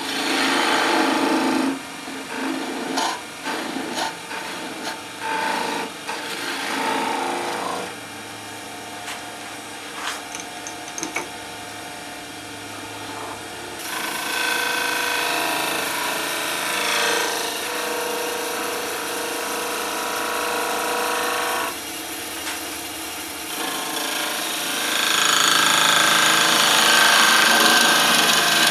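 Turning gouge cutting a spinning cherry-wood blank on a Delta wood lathe, a scraping cut. In the first several seconds it comes and goes in short passes. It eases off for a while, then runs steadier, and louder near the end.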